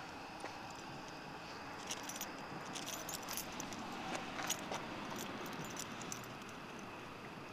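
Small metal pieces jingling in a few short clusters of light clicks, mostly between about two and five seconds in, over a steady faint hiss.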